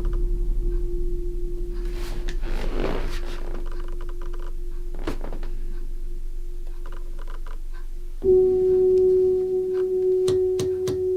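A steady, pure electronic drone tone with a low hum beneath, stepping up louder about eight seconds in as a higher overtone joins. Scattered light clicks and a brief hiss come about three seconds in.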